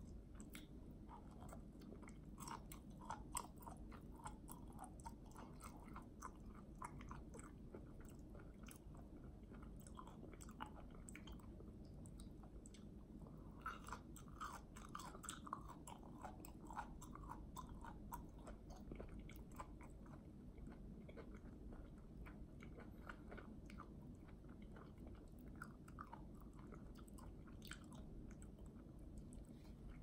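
A person chewing food: soft wet mouth clicks and chewing noises, busiest about halfway through.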